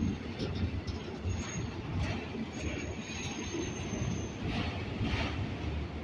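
Freight train cars rolling slowly past, a steady rumble with scattered clanks from the cars, and a thin high wheel squeal for about two seconds in the middle.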